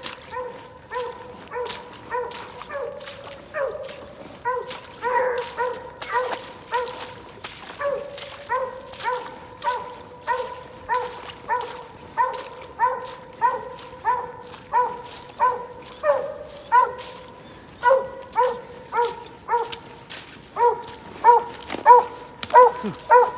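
Hunting hounds barking treed: a steady, regular chop of barks, about one and a half a second, getting louder near the end. The barks are the sign that the dogs have an animal up a tree.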